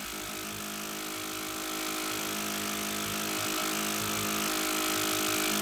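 Eurorack modular synthesizer playing an electronic drone: a wash of hiss over several held low tones, with a fast, irregular flutter in the bass, slowly growing louder.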